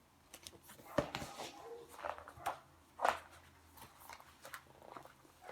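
A few soft knocks and clicks with light rustling, like a book being handled or its page turned. The loudest knocks come about a second in and about three seconds in.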